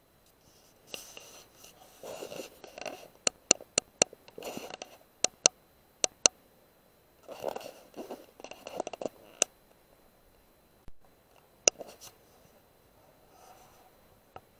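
Irregular scratching and rustling, broken by a run of sharp single clicks.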